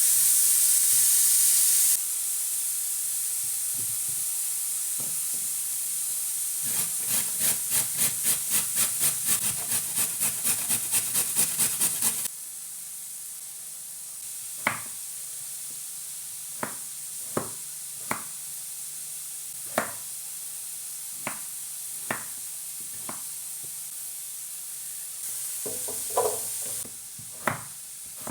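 Food sizzling as it fries in a pan, with quick rhythmic stirring strokes, about three a second, for several seconds. The sizzle then drops off suddenly, leaving scattered sharp utensil taps and clicks.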